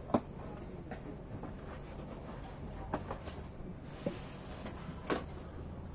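Cardboard telescope box being handled as its flaps are opened and a white inner box is lifted out: a few short light knocks and scrapes, the sharpest just after the start, over a steady low hum.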